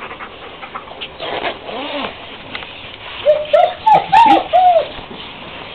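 Dog whining in high, arching squeaks, a couple of softer ones followed by a quick run of five louder ones, eager to go out for a walk.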